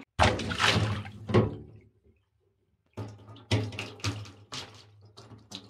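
Water splashing and spattering onto a hard surface: one heavy splash near the start, then, after a short break in the sound, a run of repeated splashes.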